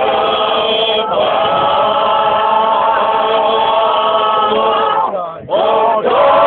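A group of voices singing a Bosnian traditional (izvorna) folk song together, holding long drawn-out notes. The voices break off briefly about five seconds in, then come back in.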